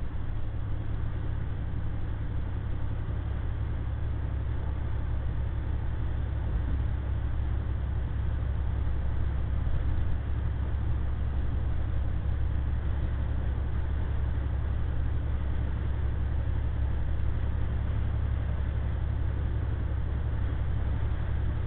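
Loaded semi truck's diesel engine and road noise heard from inside the cab while driving, a steady low drone that holds even throughout.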